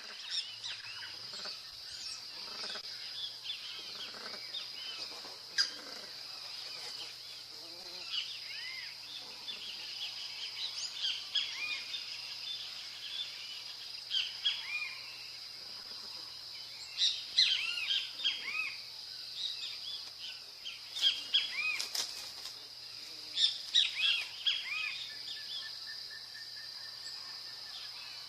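Many wild birds calling and chirping in short, quick phrases, thickest in several bursts, over a steady high-pitched drone.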